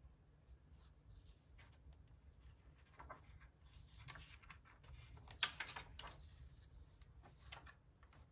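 Paper pages of a large book being turned by hand: a run of soft rustles and slides, with a sharper page flick about five and a half seconds in and a lighter rustle near the end.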